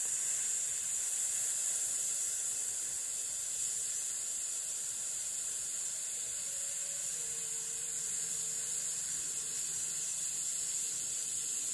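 A man holding a long, even hiss through his teeth, the breath-support exercise of letting air out slowly and steadily for breath management.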